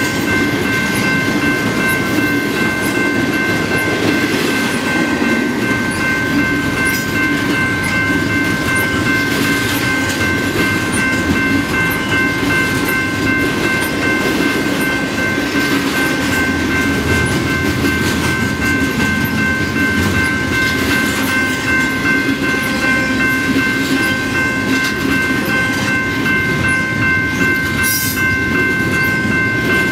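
A long double-stack container freight train rolling past: the steady rumble and rattle of its well cars on the rails, with a steady high-pitched tone running through it.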